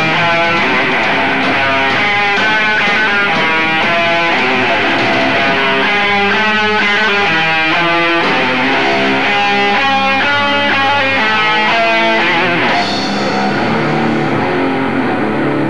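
Death metal band playing live: distorted electric guitars, bass and drums in a fast, dense riff. The sound thins out about thirteen seconds in.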